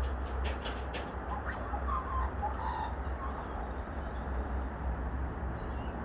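Kookaburras making short soft calls, with a row of sharp clicks in the first second or so, over a steady low rumble.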